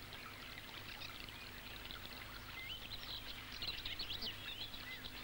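Faint, steady rush of a river current running over a gravel bank, with a few short bird chirps about halfway through.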